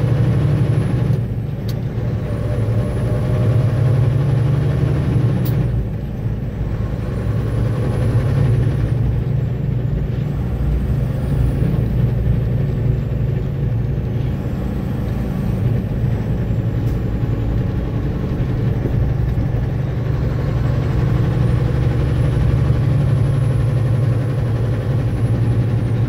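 Logging truck's diesel engine running steadily under way, a heavy low drone whose level dips briefly about a second in and again about six seconds in. A faint high whine rises and falls several times over it.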